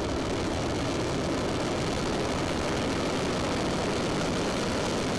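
Long March 2D rocket's first-stage engines firing at liftoff: loud, steady exhaust noise.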